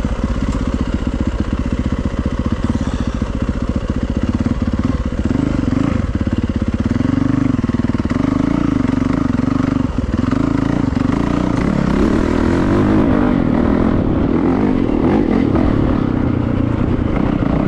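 Yamaha YZ450FX dirt bike's single-cylinder four-stroke engine riding a dirt trail, heard from the rider's helmet camera, revving up and down with the throttle and dropping off briefly about halfway through.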